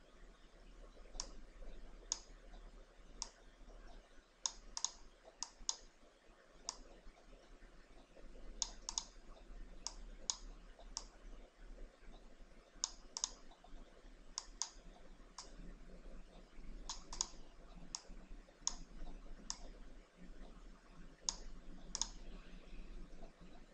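Computer mouse buttons clicking at irregular intervals, often in quick pairs, over a faint steady low hum.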